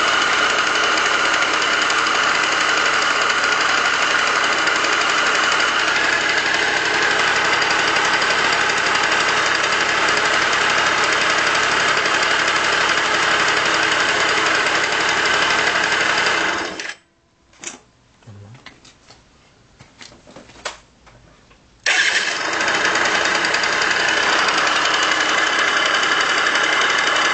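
Aerox scooter engine running with a rattle from the variator side, which the uploader takes for worn crankshaft bearings. About 17 seconds in it cuts out, leaving a few faint clicks, and about five seconds later it starts again and keeps running.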